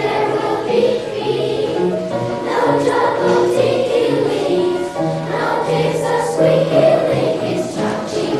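Children's choir singing a song with instrumental accompaniment, the low accompaniment notes moving step by step beneath the voices.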